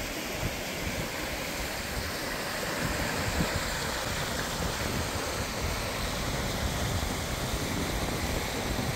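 Shallow mountain stream rushing and splashing over rocks through small rapids: a steady, even rush of water.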